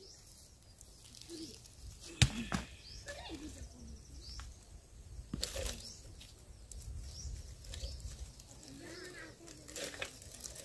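Firewood sticks cracking and knocking a few times, the sharpest crack about two seconds in, with faint bird chirps behind.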